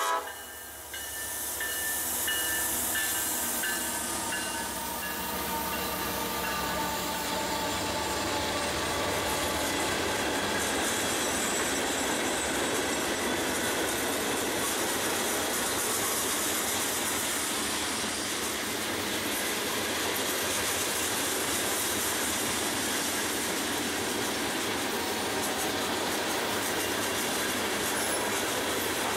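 Diesel-hauled freight train passing: the end of a horn blast right at the start, then the locomotives and a long string of tank cars rolling steadily by.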